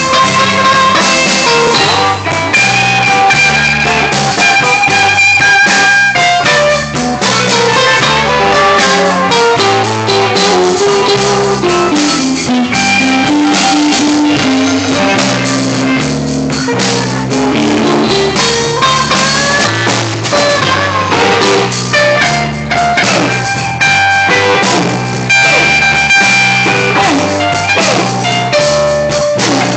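Live band jamming: electric guitars, electric bass and drum kit. A lead guitar plays long held notes that slide in pitch over a steady, repeating bass line and drums.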